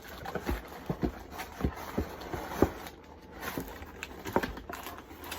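Irregular light knocks and taps, about eight in a few seconds, as the pieces of a gingerbread house kit are taken out and handled.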